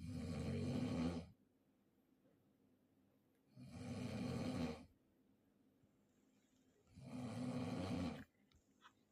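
A sleeping person snoring, three rasping snores about three and a half seconds apart, each lasting a little over a second.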